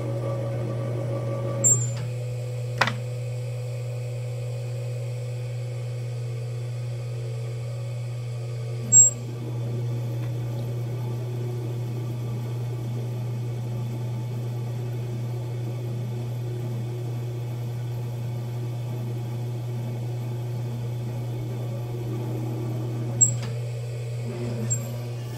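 Electric potter's wheel motor humming steadily as the wheel spins. A few short sharp clicks break in, the loudest about nine seconds in and again near the end.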